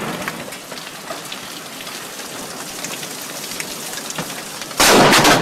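Heavy rain pattering on a brick sidewalk. Near the end comes a sudden, very loud crack of a close lightning strike, the loudest sound here.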